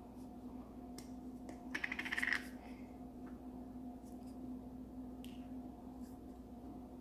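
Plastic Play-Doh tub being handled: a brief rapid rattling scrape of plastic about two seconds in and a few soft clicks, over a steady low hum.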